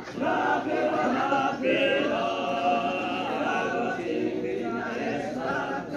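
A group of voices chanting together, unaccompanied, as the accompaniment to a dance.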